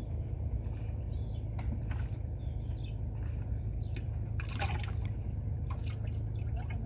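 Water trickling and dripping with small splashes and light clicks, over a steady low hum.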